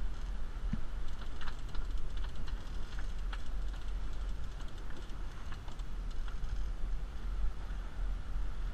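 A heavy conventional fishing reel clicking irregularly as it is cranked to bring in a hooked fish, over a steady low rumble.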